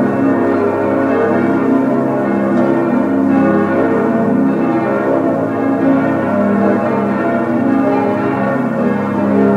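Full peal of six bronze church bells cast by Schilling of Heidelberg in 1958, tuned A♭–B♭–D♭–F–A♭–B♭, all swinging and striking at once in a dense, continuous, overlapping clangour, heard loud and close from inside the belfry.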